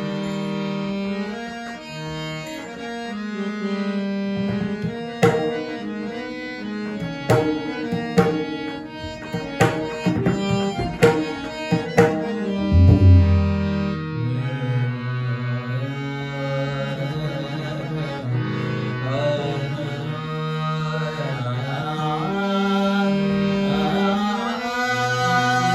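Harmonium playing the introductory melody of a Marathi abhang bhajan, with a run of pakhawaj drum strokes about five seconds in that ends on a loud, deep bass stroke, after which the harmonium carries on alone.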